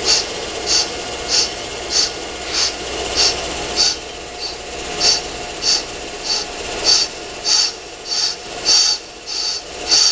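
Accuturn brake lathe's cutting bit lightly scratching the spinning brake drum as it is wound across it, a short scratch repeating evenly a bit under twice a second over the lathe's steady running. The scratch is the sign that the bit is just touching the drum's braking surface.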